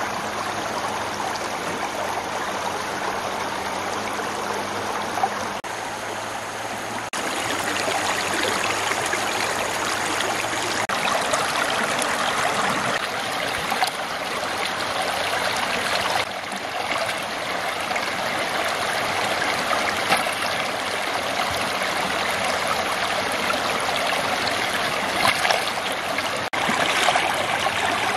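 Shallow stream running and rippling over stones and through the bamboo tubes of a fish trap, a steady rushing of water that shifts abruptly in tone several times.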